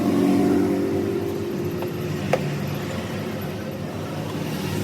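A motor vehicle engine running steadily, with one sharp click about halfway through.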